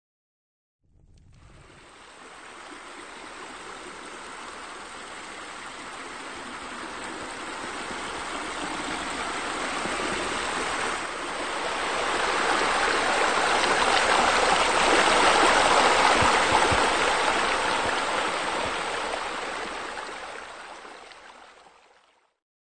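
Water splashing and running, as from a waterfall pouring into a pool. It fades in, grows louder to a peak a little past the middle, and fades out near the end.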